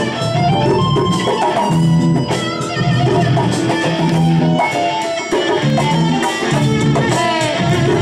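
Live music: a violin playing a sliding, wavering melody over a plucked string accompaniment.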